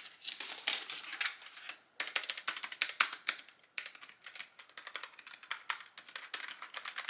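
Typing on a Logitech G915 TKL low-profile mechanical keyboard: a quick, irregular run of key clicks with a couple of short pauses.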